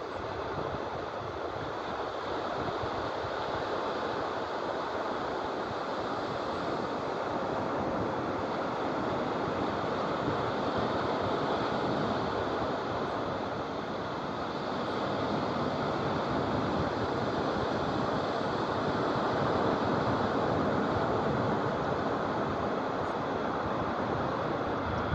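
Surf on a sandy beach: a steady wash of waves that swells and eases slowly, with low wind rumble on the microphone.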